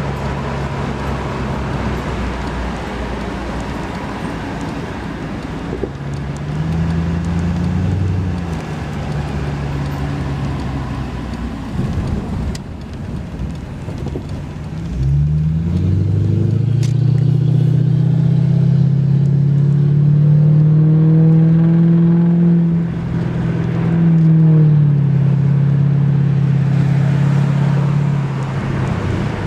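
Mercury Cougar's engine running, with its pitch rising at about seven seconds and again at about fifteen seconds, where it holds at higher revs for several seconds, dips briefly and then rises and holds again.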